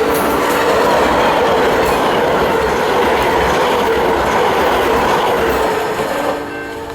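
Amtrak passenger train's cars passing close by at speed: a loud, steady rush of wheels on rail with clickety-clack. About six seconds in the rush drops off and a steady horn chord comes in.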